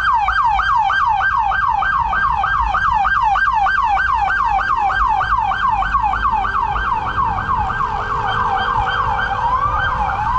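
Police car siren on its fast yelp setting, a loud tone sweeping rapidly down over and over, about three to four times a second; near the end it switches to slower rising wail sweeps.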